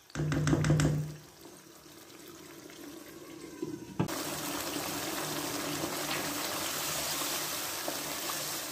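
Yogurt and beef gravy sizzling and bubbling in a non-stick pan as it is fried down until the oil separates. It is a steady hiss from about four seconds in, after a brief burst of spatula stirring noise at the start.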